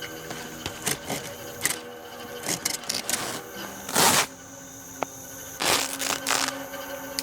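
Irregular rustling and crunching noises, the loudest about four seconds in and again around six seconds in, over faint steady tones.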